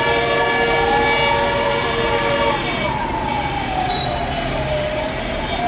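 Wailing emergency siren sliding slowly up and down in pitch. A long steady horn blast sounds over it for the first two and a half seconds.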